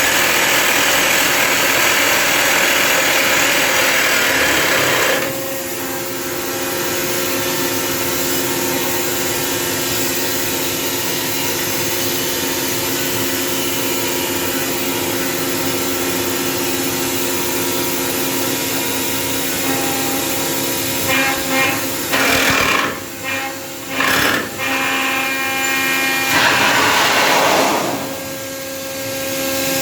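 Atlas Copco Simba S7D long-hole drill rig at work: a loud dense noise for about the first five seconds, then the steady multi-tone hum of the running rig, broken by several louder noisy bursts from about 21 to 28 seconds in.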